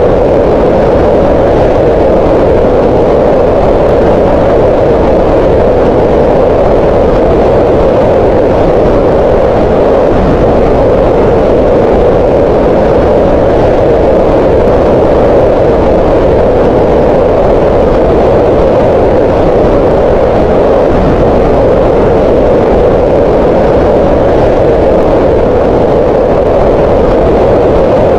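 Green noise: a steady, unchanging hiss with most of its energy in the midrange around 500 Hz, with less rumble below and little treble above.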